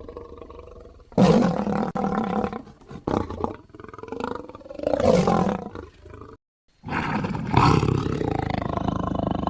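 Big-cat creature sound effects voicing the extinct cat Panthera shawi: a run of deep roars, the loudest about five seconds in. After a brief silent cut, a new long roar starts and holds steady to the end.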